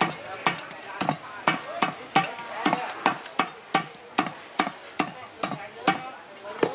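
A cleaver chopping a raw chicken into small pieces on a thick round wooden chopping block: a steady run of sharp chops, about two to three a second.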